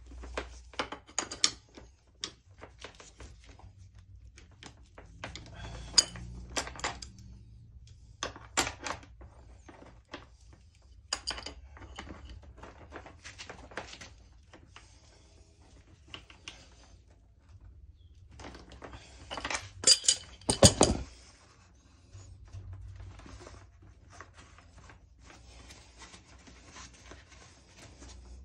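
Steel spanners clinking and clicking against flare nuts on copper air-conditioner pipes as the nuts are tightened. The sharp metallic clicks come irregularly, with a louder clatter about twenty seconds in.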